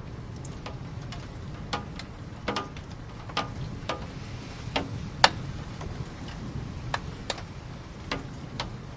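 Raindrops dripping and tapping irregularly on a hard surface, one or two sharp taps a second, the loudest about five seconds in, over a low steady rumble.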